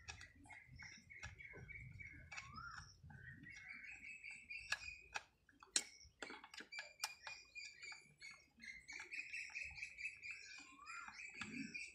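Small birds chirping repeatedly with short rising and falling calls, and a few sharp clicks from handling a chainsaw and parts on the workbench, the loudest around the middle.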